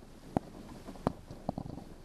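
Irregular light knocks and thumps aboard a small boat, a few a second, over a low rumble, with no steady engine note.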